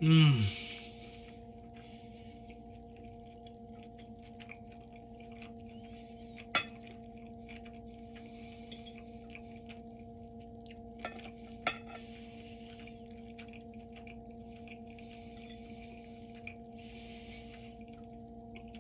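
A steady electrical hum, a low tone with higher overtones, runs under the eating. A short falling vocal sound opens it, then soft chewing and a few sharp clinks of a metal fork and knife on a ceramic plate, about six and a half and eleven to twelve seconds in.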